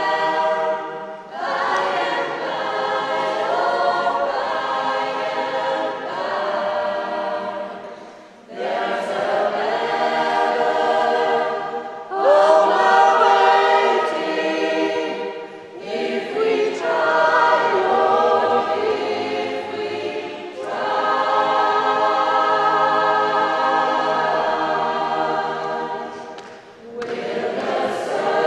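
Mixed choir singing in held phrases, with several short breaks between them.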